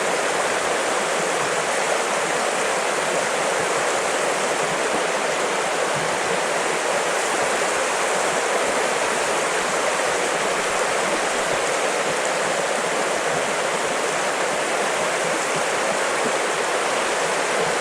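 Steady rushing and burbling of a small stream's current, with no distinct events.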